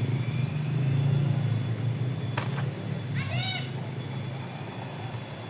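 One short animal call about three seconds in, its pitch arching up and down, over a steady low hum that fades after the middle; a single sharp click comes just before the call.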